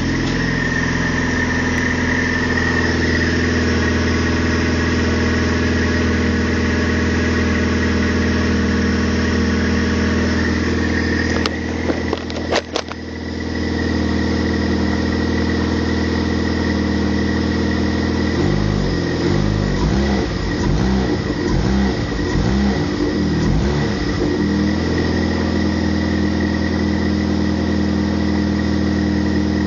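Vauxhall Astra 1.4 16v petrol engine running at idle with a steady high-pitched whirring whine, which the owner likens to a supercharger and traces to a pulley at the lower left of the engine. The low engine note wavers and pulses for several seconds past the middle.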